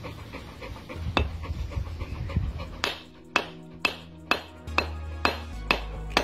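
A hammer tapping on a wooden block set on a hydraulic cylinder's rod end, driving the piston assembly down into the cylinder. There is handling noise at first, then about three seconds in a steady run of sharp knocks starts, about two a second, over background music.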